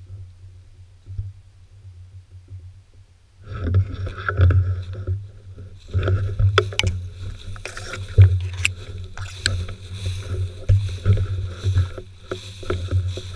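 Tall dry grass swishing and brushing against a walker's legs and the camera as he pushes through it on foot, quiet at first and loud from about three and a half seconds in, with many sharp ticks of stems striking close to the microphone. A steady low rumble runs underneath.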